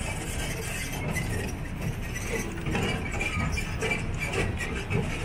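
Resort shuttle train running at low speed: a steady low rumble with frequent small rattles and clinks from the carriages.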